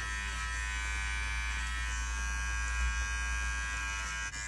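Electric hair clippers running with a steady buzz while trimming hair along the hairline, with a brief click about four seconds in.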